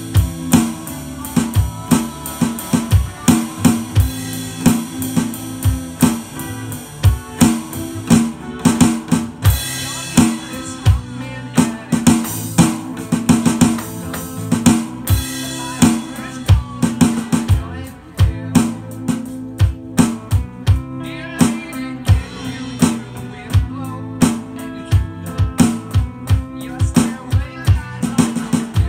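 Rock drum beat played on a Roland electronic drum kit, with kick, snare and cymbal hits, along with a backing track that has guitar.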